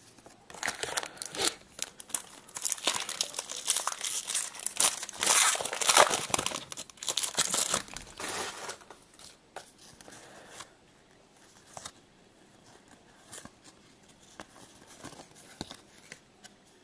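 A trading-card pack's wrapper being torn open and crumpled: several seconds of dense crackling. After that come only faint rustles and clicks as the cards are handled.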